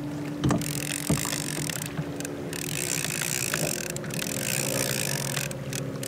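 Steady mechanical hum made of several pitches, over a hiss of wind and water, with a couple of light clicks about half a second and a second in.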